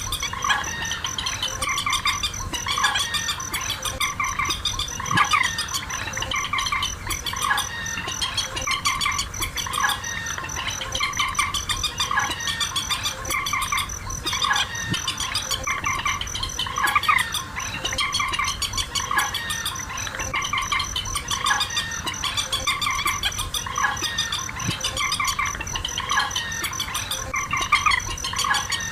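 Calls of rails, white-breasted waterhen and swamphen, repeated over and over in a dense overlapping chorus, with a steady high pulsing trill like a cricket running underneath.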